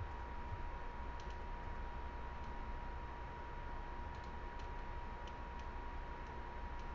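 Faint background hum and hiss with a thin steady whine, and a few soft scattered clicks.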